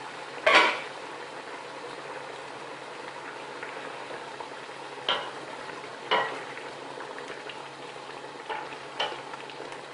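Peppers frying in oil in a pan, sizzling steadily as their edges brown. Several knocks of a utensil against the pan are heard; the loudest comes about half a second in, and others follow around five and six seconds.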